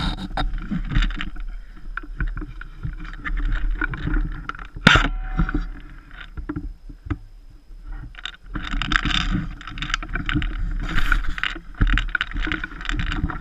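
Movement and handling noise on a worn action camera: rustling and knocks over a steady low rumble on the microphone, with one sharp crack about five seconds in.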